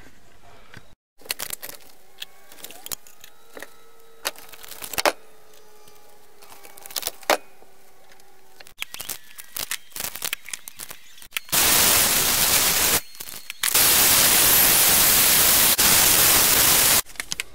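Scattered clicks and knocks, then a vacuum cleaner runs loud and steady from about eleven seconds in. It cuts out briefly once and stops just before the end.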